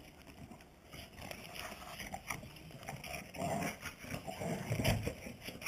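Two dogs, a Boxer and a Groenendael (Belgian Shepherd), play-fighting: scuffling paws on concrete mixed with the dogs' own play noises, irregular and getting louder about three seconds in, with the loudest burst shortly before the end.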